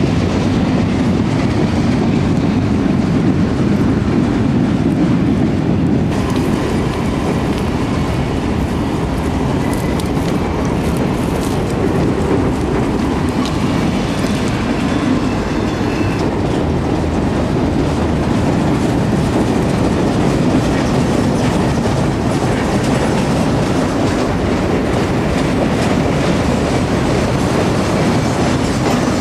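Norfolk Southern GE Dash 9-40CW diesel locomotive working at full throttle on the climb to the summit, followed by a mixed freight's cars rolling past with a steady heavy rumble. Wheels clatter over the rail and a faint wheel squeal comes and goes from about six seconds in.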